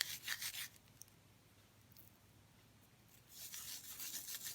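Dry Queen Anne's lace seed heads crackling and rustling as they are rubbed and crushed between the hands to free the seeds. Two short spells of it, with a quiet pause of about two and a half seconds between.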